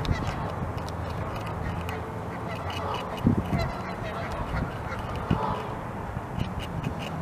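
North American beavers gnawing bark and wood off a log, with a few crunching bites standing out about three and five seconds in. Waterfowl call faintly in the background.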